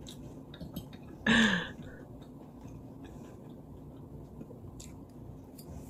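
Faint close-miked eating sounds: chewing and small mouth and fork clicks scattered throughout. About a second in, one short vocal sound falls in pitch.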